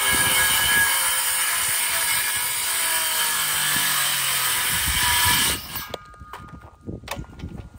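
Ridgid circular saw cutting through a rough-cut 2x6 board, running steadily and then stopping abruptly about five and a half seconds in. A few light knocks follow.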